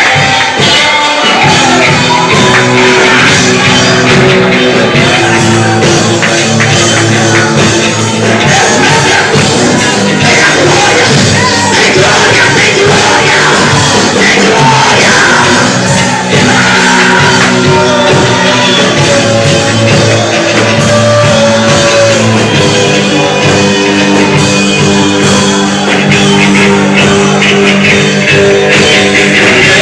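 Loud, continuous band music with voices singing and shouting over it.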